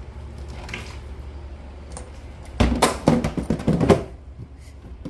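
Soda cans being moved around in a cooler: a quick run of clinks and clatters starting about two and a half seconds in and lasting over a second.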